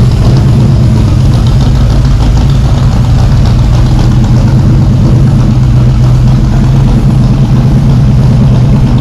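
Shelby Cobra's 427 V8 running at a steady idle, loud and even.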